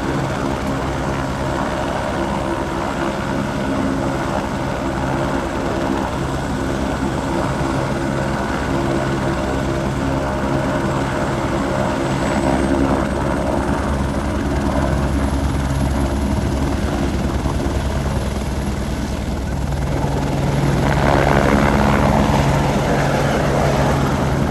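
Helicopter running close by, its rotor and turbine making a steady, pulsing drone. It grows louder about twenty seconds in, with more rushing noise mixed in.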